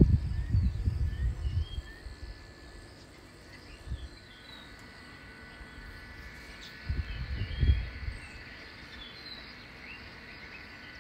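Outdoor riverside ambience: short bird chirps and a steady insect drone that comes in about four seconds in. Low rumbling bursts at the very start and again about seven seconds in are the loudest sounds.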